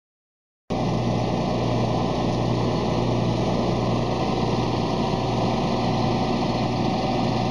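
Crane truck's engine running steadily at idle, a constant low hum that cuts in abruptly under a second in.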